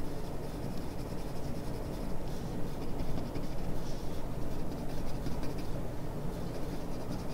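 Graphite drawing pencil scratching on paper in short repeated strokes as tabby markings are sketched, over a steady low background hum.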